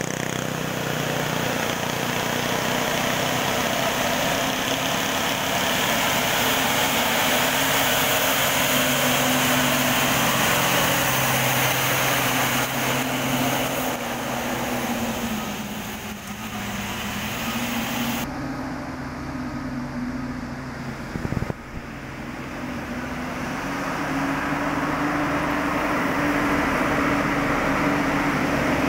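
Loaded cargo trucks' diesel engines labouring up a hill bend, the engine note dipping and rising again midway, over a hiss of tyres on the wet road.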